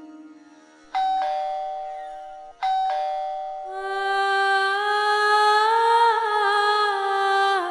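A doorbell chime rings twice, each ring starting suddenly and dying away, about a second and three-quarters apart. After that, background music comes in with a held, gently wavering melody line.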